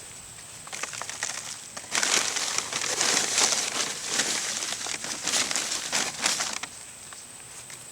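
Crunching and rustling of garden soil and potato plants as potatoes are dug out, a dense crackle that starts about a second in and stops abruptly near the end.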